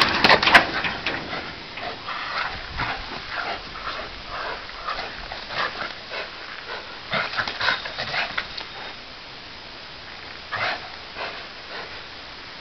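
Two dogs tugging on a bite pillow between their jaws, giving short whining noises in irregular bursts, loudest near the start.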